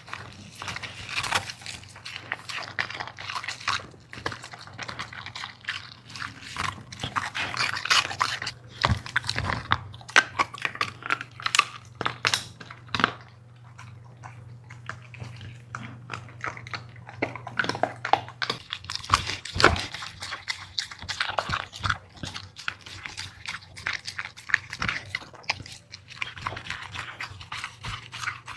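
A dog eating, with rapid crunching, chewing and mouth smacks coming in quick irregular bites. A steady low hum runs underneath.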